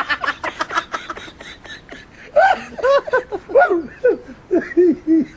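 Laughter: a fast run of short laughs, then slower, higher-pitched laughs at about three a second through the second half.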